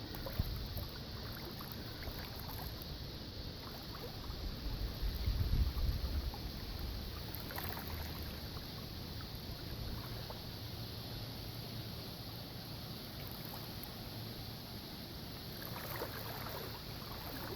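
Steady outdoor background noise, with a low rumble of wind on the microphone that swells about five seconds in.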